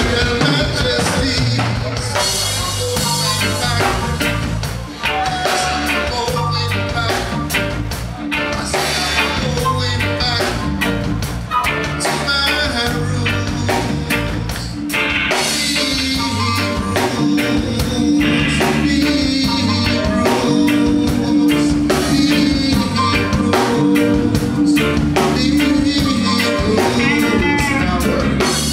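Live band playing with a singer on microphone: electric guitar, bass guitar and drum kit under the vocal, with a steady bass line and regular drum beats.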